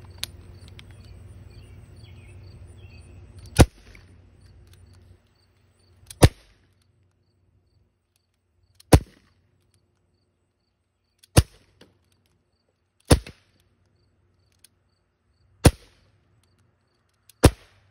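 A 1911-style BB pistol fired seven times, each shot a sharp pop, spaced about two to three seconds apart. Crickets chirp faintly behind it.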